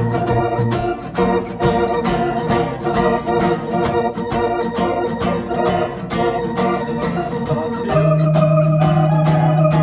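Organ and guitar jamming together: sustained organ chords over a steady rhythm of short strokes, moving to a new chord with a held low note about eight seconds in.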